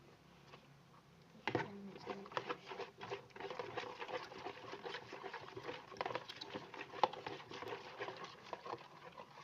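Sticky homemade glue-and-borax slime being handled and squished, making a rapid, irregular run of small wet clicks and squelches that starts about a second and a half in.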